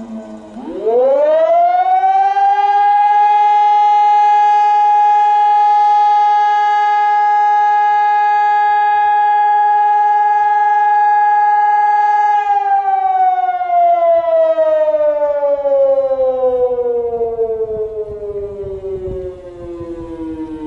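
Civil defence siren sounding for its monthly test. Near the start it winds up quickly from a low pitch, holds one steady tone for about ten seconds, then winds slowly down in pitch.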